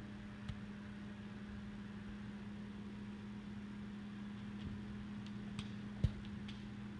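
Steady low hum with a few light clicks, and a single soft thump about six seconds in.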